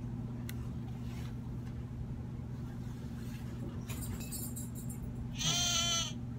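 A children's sound book's small electronic speaker plays a recorded sheep bleat, about a second long and quavering, near the end.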